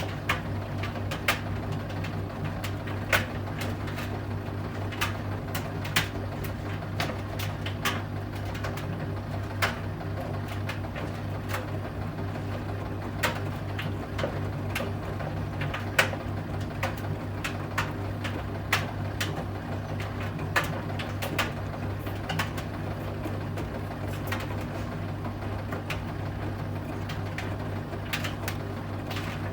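Bosch Serie 8 front-loading washing machine in its main wash, the drum motor running with a steady low hum while the load tumbles. Sharp clicks and knocks come at irregular intervals as the laundry drops and hits the drum.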